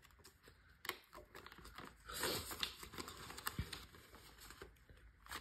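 Faint rustling and crinkling of clear plastic cash-stuffing envelopes and paper banknotes being handled, with a few light clicks and taps.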